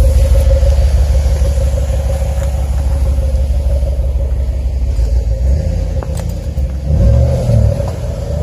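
A truck's exhaust, fitted with an electric exhaust cutout, rumbles steadily at idle. In the last few seconds the engine is revved briefly two or three times.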